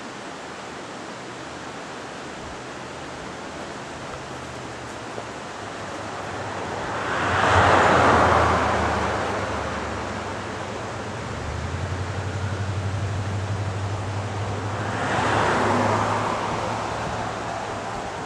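Steady rushing outdoor noise that swells up loudly about seven seconds in and again, less strongly, near the end, with a low hum under the second half.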